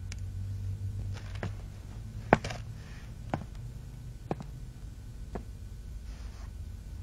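Soft rustling of paper sheets being handled and read, with a few sharp clicks about a second apart, the loudest a little over two seconds in, over a low steady hum.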